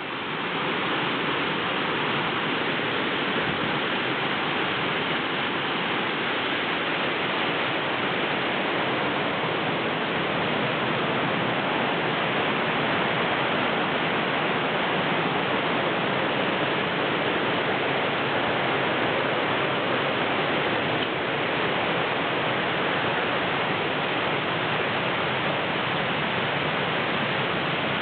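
Steady rush of a wide, low waterfall pouring over rocks in full flow: an even, unbroken water noise.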